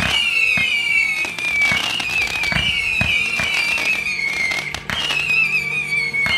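Whistling fireworks shots going up one after another: each starts with a crack and a shrill whistle that slides down in pitch over about a second, a new one roughly every second and a quarter.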